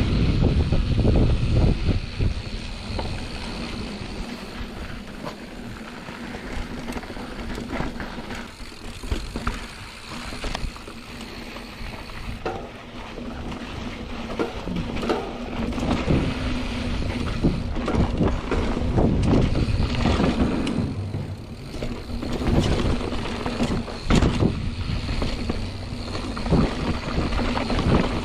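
Mountain bike being ridden on a dirt trail: wind buffeting the microphone, tyres on dirt and the bike rattling and knocking over roots and bumps. It is loudest in the first two seconds and again through much of the second half.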